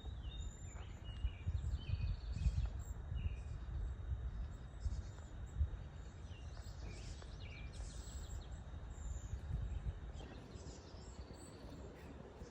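Forest birds calling with short chirps scattered throughout, over a low constant rumble.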